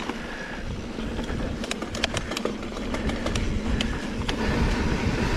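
Mountain bike rolling along a dirt trail: a steady low rumble of tyres and wind on the microphone, with sharp clicks and rattles from the bike, most of them around two to three seconds in.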